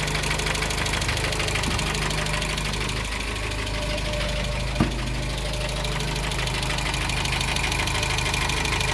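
Dacia 1310's four-cylinder engine idling steadily with a light knock that new crankshaft bearings have not cured; mechanics suspect the piston skirt (piston slap), the owner a piston or wrist pin. A single short click sounds about halfway through.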